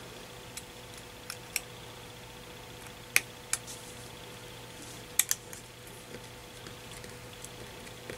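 Small sharp clicks and taps, several in close pairs, as a precision screwdriver and tiny screws are worked on the metal shield inside an iPhone 6. A faint steady hum runs underneath.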